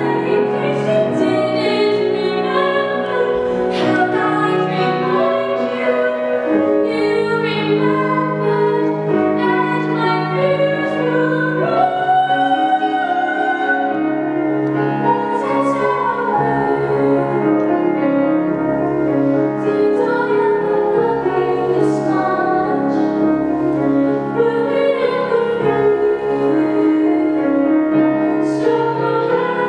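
A woman singing a musical-theatre song in sustained lines, accompanied by grand piano.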